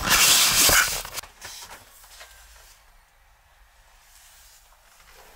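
A loud rustling swish lasting about a second, from close handling movement, fading to quiet with only faint handling ticks.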